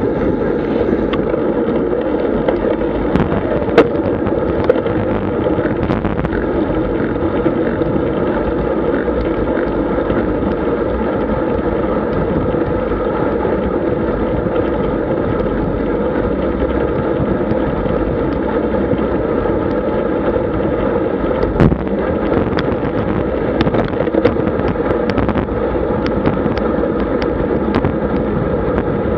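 Steady wind rush and road rumble on a bike-mounted action camera's microphone while a road bike rides at about 40 km/h, with a few sharp knocks from bumps in the road.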